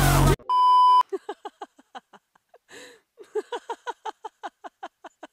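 A single steady electronic beep, a censor-style bleep tone about half a second long, comes in as the music cuts off. After it comes a quieter rapid string of short, falling-pitched sounds, about four or five a second.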